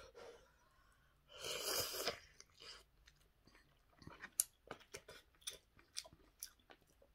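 A person eating ramyeon noodles: a loud slurp about a second and a half in, then chewing with a run of short clicks and smacks.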